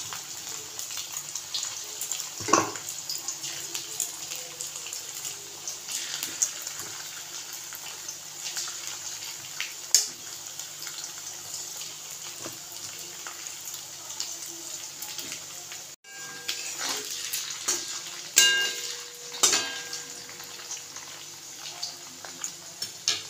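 Batter-coated chicken pieces deep-frying in hot oil in a steel kadhai: a steady crackling sizzle, with a few sharp metal knocks against the pan.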